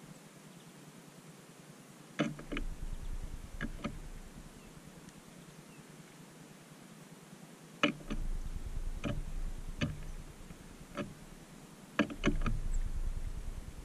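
Three short bouts of sharp clicks and knocks, each with a low rumble beneath, separated by a faint steady hiss.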